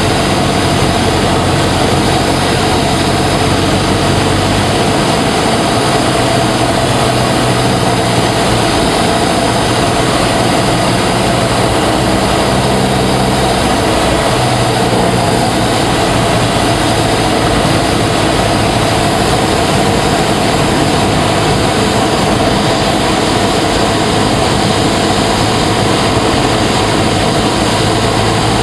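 Cessna 172S's four-cylinder Lycoming engine and propeller running with a loud, steady drone; the low engine note shifts a couple of times.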